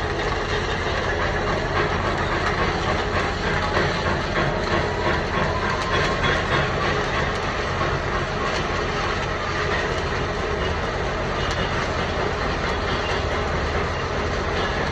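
Stick (shielded metal arc) welding with a 7018 electrode: the arc crackles steadily and densely, with a constant low hum underneath.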